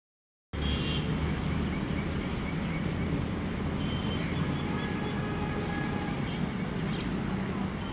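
Steady background rumble of road traffic, starting about half a second in.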